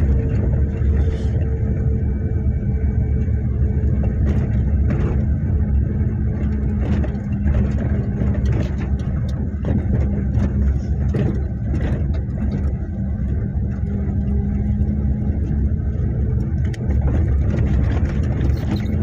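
A motor vehicle's engine running with a steady low rumble and hum, with a few faint clicks and knocks over it.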